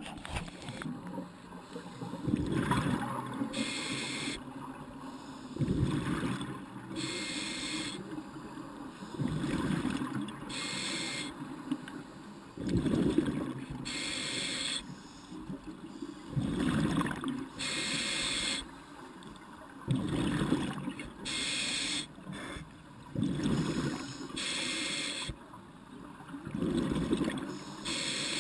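A scuba diver breathing through a regulator close up, in a steady rhythm of about one breath every three seconds: each inhale draws a hiss through the demand valve, and each exhale is a gurgling rush of exhaust bubbles.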